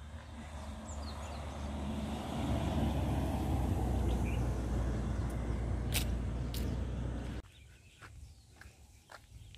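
Road traffic noise, engine hum and tyre rush from a car or other vehicle close by. It builds over the first couple of seconds, holds steady, then cuts off abruptly about seven seconds in.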